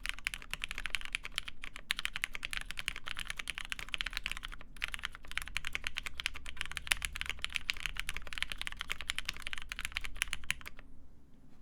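Mechanical keyboard with lubed Cherry MX Black linear switches in a full aluminium plate, with GMK keycaps, being typed on quickly and continuously; the typing stops shortly before the end.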